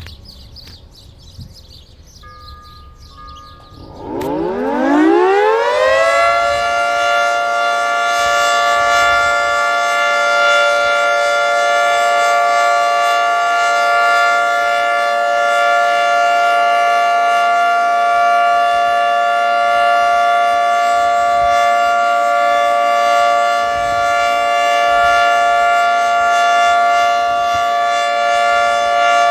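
Federal Signal 2T22 dual-tone outdoor warning siren winding up about four seconds in, rising quickly in pitch, then holding a steady, loud two-note chord. Before it starts, faint church bells ring.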